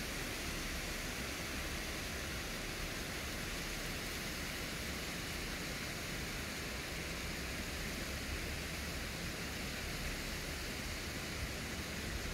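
Wind blowing over a phone's microphone: a steady, even rush with unsteady low buffeting underneath.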